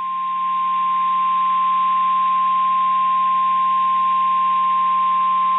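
NOAA Weather Radio warning alarm tone: a single steady tone at about 1 kHz over static hiss and a low hum, fading in over the first second and holding unbroken, the signal that a warning message follows.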